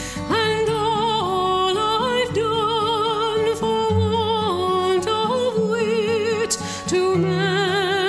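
Background music: a slow melody in long held notes with vibrato, stepping from note to note over sustained chords.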